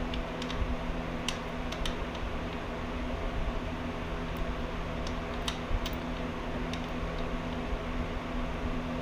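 Steady fan-like hum with several low tones, broken by a few faint light clicks as the oil drain bolt and its crush washer are fitted back into the oil pan.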